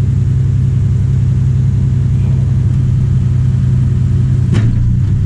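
The diesel engine of a 1995 Mitsubishi MS110 track hoe running steadily under hydraulic load as the bucket is opened, with one brief knock about four and a half seconds in.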